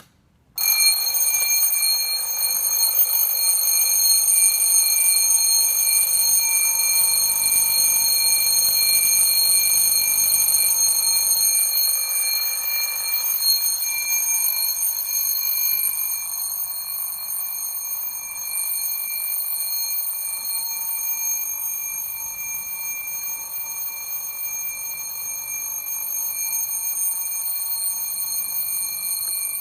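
Alarm clock ringing continuously at a high pitch, starting just after the beginning and easing a little quieter from about halfway through.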